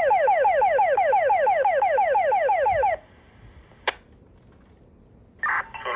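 Fire dispatch alert tone played through a Uniden BC125AT scanner's speaker: a rapid string of falling beeps, about six a second, that stops abruptly about three seconds in. A single sharp click follows nearly a second later, then a burst of radio static near the end as the next transmission opens.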